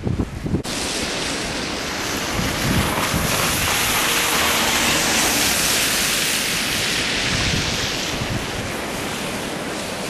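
Street traffic on a wet, slushy winter road, with wind buffeting the microphone: a steady hiss of tyres that swells as a van passes close and then eases.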